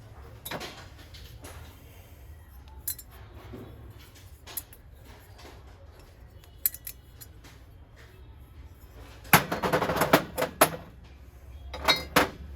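Metal kitchen vessels and utensils, brass by the look of the items, being handled: scattered knocks and clinks, a few ringing briefly, with a quick run of clattering near the end.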